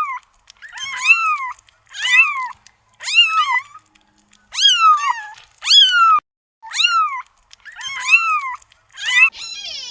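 Cat meowing over and over, about one rising-and-falling meow a second.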